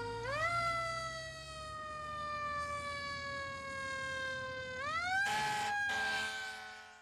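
Emergency siren wailing: its pitch sweeps up, sags slowly over several seconds, then sweeps up again about five seconds in, with a short hissing burst just after, before it fades out.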